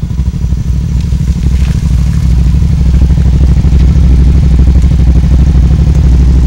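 Suzuki SV650's V-twin engine running at low revs, a steady, loud, low pulsing beat that gets louder about two seconds in and then holds at idle.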